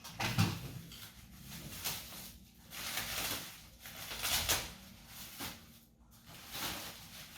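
Packaging rustling and being handled in a series of irregular bursts as an office chair's gas lift is unwrapped.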